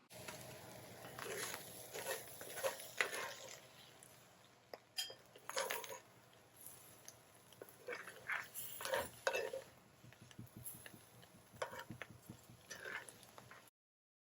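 Irregular clinks and scrapes of cooking utensils and cookware, stirring food in a pan. They cut off suddenly near the end.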